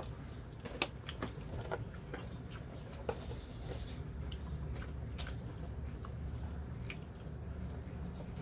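People eating at the table: soft chewing with scattered small clicks and taps, over a steady low background hum.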